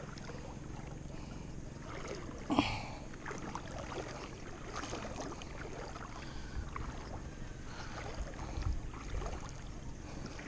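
Water lapping and sloshing at the shore, with scattered light clicks and knocks and one louder short knock about two and a half seconds in.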